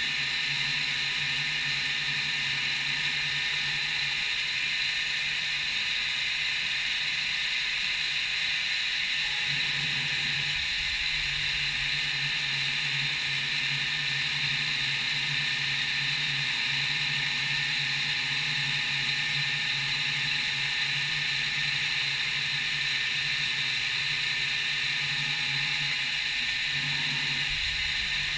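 CNC milling machine running a cut: a steady spindle whir with a strong hiss over it, the low hum shifting briefly about ten seconds in and again near the end.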